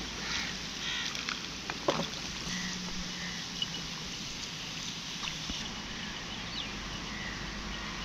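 Wooden rowboat on the river: water splashing and sloshing around the hull and oar, with a sharp wooden knock about two seconds in and a few lighter clicks.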